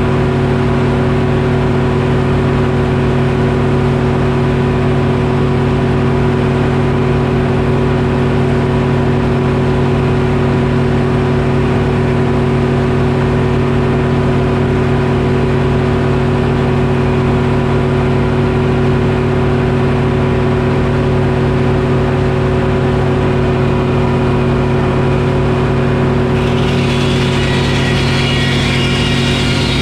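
Detroit Diesel engine powering a sawmill, running steadily at a constant speed. Near the end, a higher set of ringing tones joins over it.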